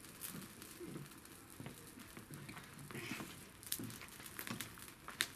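Bonfire with burning cardboard crackling quietly, with scattered sharp snaps and pops.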